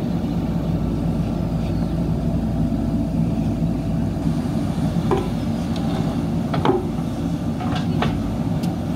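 JCB backhoe loader's diesel engine running steadily under load as the backhoe arm works a concrete culvert pipe, with a few brief sharp sounds over it in the second half.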